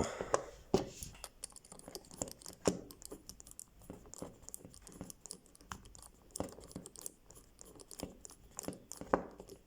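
Small hand screwdriver driving a screw into a 3D-printer extruder, making a string of light, irregular clicks and scrapes of tool and screw on metal and plastic parts.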